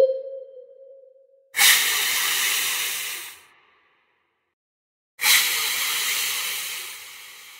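Two loud bursts of hissing noise, each starting suddenly and then fading: the first about one and a half seconds in, the second about five seconds in. A steady electronic tone fades out in the opening second.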